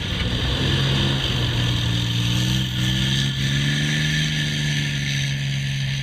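Main battle tank's engine running as the tank drives, a steady low engine note that rises a little in pitch about halfway through and settles again.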